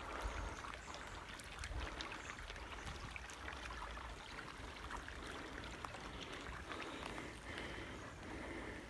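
Small shallow creek trickling and babbling, a faint, steady water sound with little splashes.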